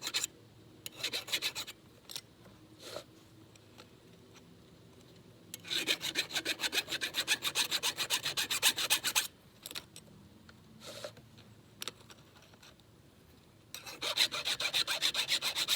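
Flat file rasping across the rakers (depth gauges) of a Husqvarna X-Cut saw chain in runs of quick strokes: a short run about a second in, a long run from about five and a half to nine seconds, and another near the end.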